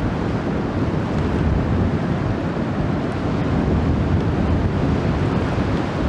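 Strong wind buffeting the microphone, a steady low rumbling rush over the sound of choppy river water.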